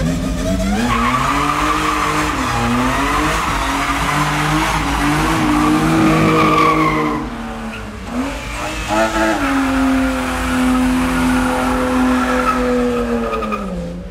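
Car engines revving hard with tyres squealing in burnouts. There are two stretches split by a short break about halfway, and the second holds a high, steady rev before dropping off near the end.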